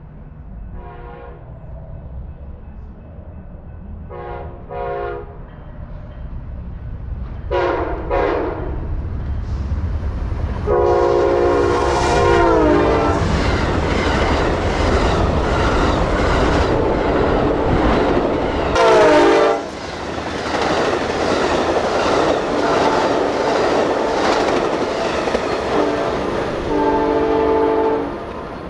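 Amtrak passenger train sounding its horn as it approaches: two pairs of short blasts, then a long blast whose pitch drops as the locomotive goes by. The double-deck Superliner cars then rumble and clatter past on the rails, with further short horn blasts, one about two-thirds of the way through and one near the end.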